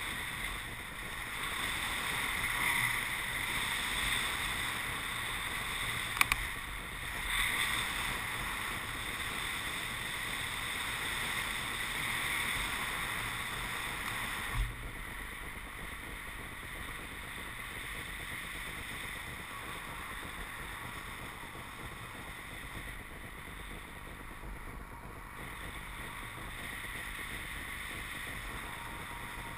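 Steady rush of air past a paraglider pilot's camera in flight, with two sharp clicks about six seconds in and a brief thump about halfway through, after which the rush is a little quieter.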